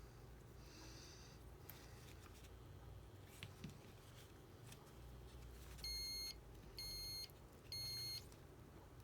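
Three short electronic beeps, each about half a second long and about a second apart, over a faint, quiet background.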